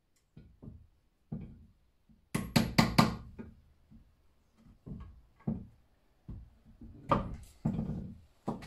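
A hammer knocking on a diesel engine's timing case, tapping a seal into its seat. There are a few light knocks, then a quick run of four sharp strikes about two and a half seconds in, then more spaced taps.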